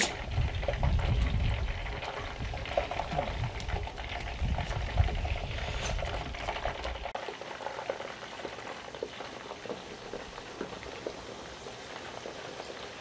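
Chicken wings deep-frying in hot peanut oil in a Dutch oven: a steady bubbling, crackling sizzle. Wind rumbles on the microphone until about seven seconds in, then drops away suddenly.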